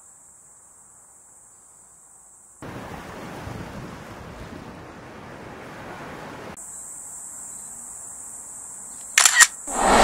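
Waves washing onto a sandy shore for about four seconds, between stretches of a faint, steady high hiss. Near the end come two sharp clicks, then music with a whistled tune begins.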